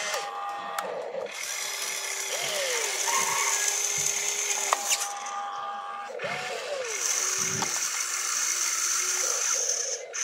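Electric motors and gearboxes of an RC excavator whining as the boom, arm and bucket move, starting and stopping in stretches and rising and falling in pitch.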